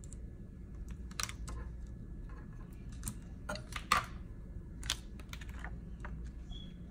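Weeding hook picking and scraping at iron-on vinyl on a light pad: irregular small clicks and crinkles of the vinyl and its plastic carrier sheet.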